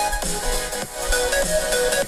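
Background electronic music with a steady beat and sustained melodic tones.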